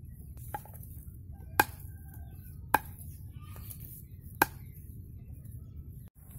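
Knife blade chopping palmyra palm sprouts against a wooden log: a faint knock shortly after the start, then three sharp chops a second or more apart.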